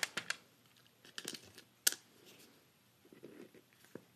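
Scattered small clicks and clinks of precut art-glass mosaic pieces being picked from a loose pile and set down onto the mosaic, with a sharper click about two seconds in.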